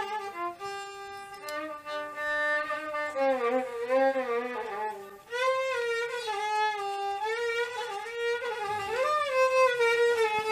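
Violin playing an instrumental melodic passage with gliding, ornamented notes, in two phrases with a brief break about five seconds in.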